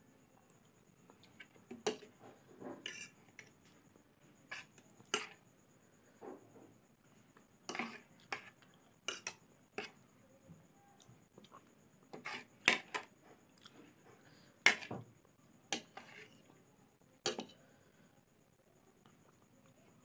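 Metal spoon and fork clinking and scraping on a plate as noodles are scooped up: irregular short, sharp clicks, often a second or so apart.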